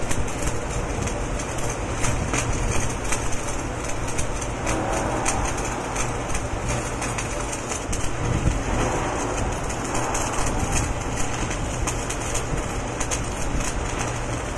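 Electric arc welding inside a large-diameter steel pipe: the arc gives a steady crackling hiss, over a steady low rumble.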